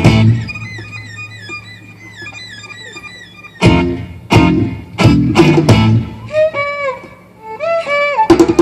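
Gypsy-style guitar music: loud struck chords, broken by quieter passages of high, wavering runs and notes that slide up and down.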